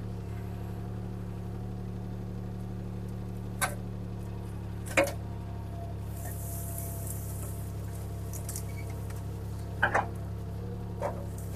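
CAT 303C CR mini excavator's diesel engine running steadily while it drags brush, with a few sharp cracks of breaking branches, the loudest about five seconds in and a quick pair near ten seconds.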